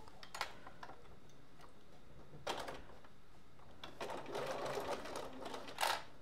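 Bernina sewing machine stitching through the layers of a vinyl project bag, starting up about four seconds in and running slowly, after a few clicks and a brief rustle as the work is positioned under the foot.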